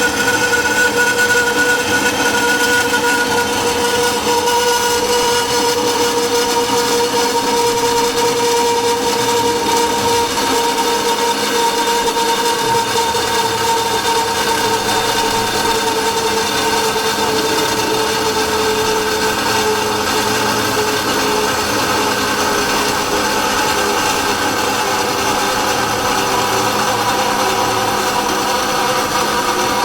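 Harbor Freight bandsaw with a 14-tooth-per-inch Lenox blade cutting dry through thick-walled (0.079 in) titanium pipe: a steady, loud whine of blade on metal, its several tones drifting slowly lower as the cut goes on.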